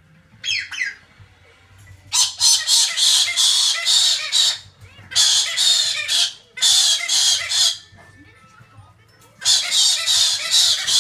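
Cockatoo screeching: a brief call about half a second in, then long, loud, harsh screeches in four bouts, the first starting about two seconds in.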